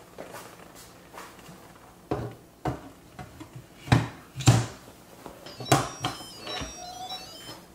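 A series of separate knocks and clatters from cookware being handled in a kitchen, about six in all, with a few high ringing notes after the middle.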